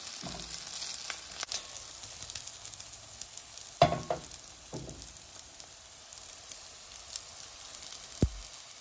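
Dumplings sizzling in oil in a stainless steel pan as their bottoms brown, before they are steamed. A steady crackling hiss is broken by a few sharp knocks, the loudest about four seconds in.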